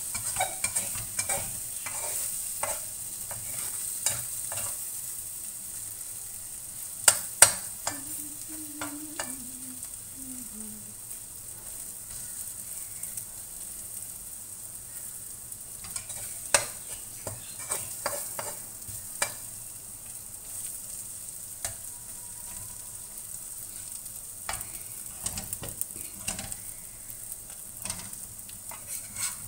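Vegetables and egg sizzling steadily in a hot wok while a metal spatula stirs and scrapes them, with repeated clicks and knocks of the spatula against the pan, the loudest a pair of knocks about seven seconds in.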